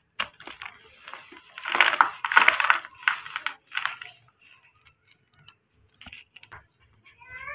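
Dry chunks of white cement crushed and crumbled between the fingers: a run of dry crunches, loudest about two seconds in, then a few softer crumbles.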